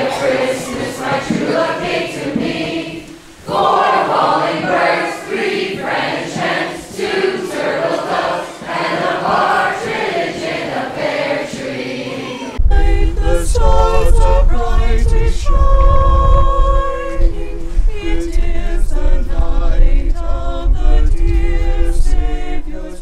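Carolers singing a cappella as a group in a reverberant hall. About twelve seconds in, the sound changes abruptly to a few clearer voices holding notes over a steady low rumble.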